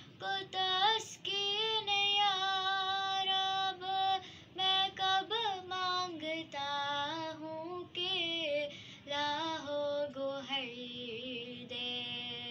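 A young girl singing an Urdu devotional dua solo, holding long notes with a wavering vibrato on several of them.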